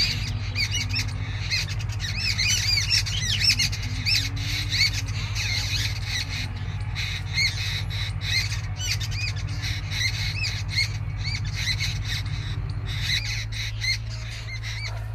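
Birds calling in the trees: many short, arched, high-pitched chirps and squawks, repeating over and over, over a steady low hum.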